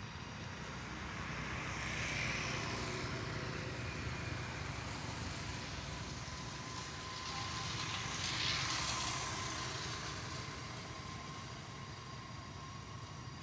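Road traffic passing: a vehicle's tyre-and-engine hiss swells and fades about two seconds in, and a louder pass comes about eight seconds in, over a steady low rumble.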